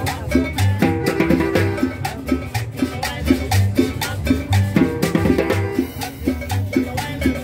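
Latin dance music from a live combo band, with a steady bass beat about once a second and busy percussion.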